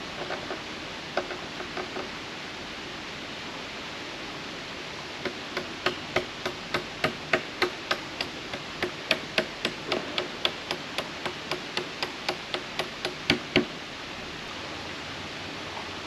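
Hammer pounding a bolt down through a wooden bridge deck plank: a few light taps, then a steady run of about thirty sharp blows at roughly three a second, the last two the hardest.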